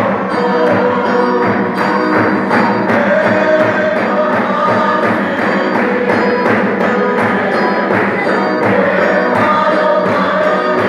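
A congregation singing a hymn together over a steady percussion beat.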